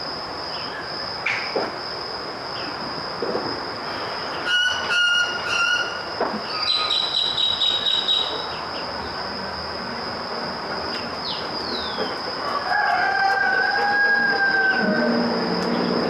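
Outdoor ambience: a steady high-pitched whine over a soft hiss, with scattered short bird chirps and a quick run of clicks about halfway. Near the end comes a long call of two held tones that sinks slightly at its close, and a low steady hum starts just before the end.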